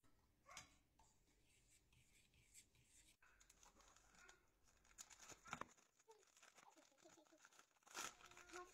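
Faint crinkling and tearing of a chocolate bar's paper wrapper and foil as it is unwrapped by hand, with a few sharper crackles about halfway and near the end.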